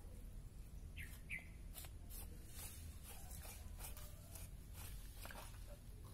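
Faint sounds of goat skinning: a knife and hands pulling the hide off a hanging carcass, giving soft scrapes and ticks over a low rumble, with two short high chirps about a second in.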